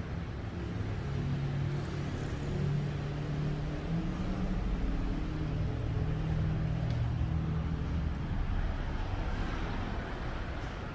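Steady low vehicle rumble, with a hum that drifts slightly in pitch.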